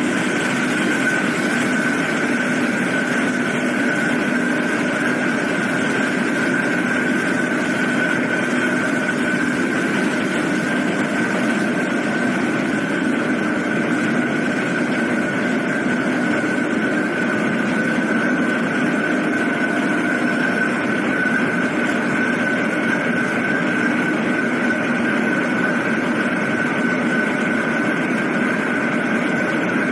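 Steady drone of a car ferry's engines and machinery heard from the deck, with a constant high whine over a low hum.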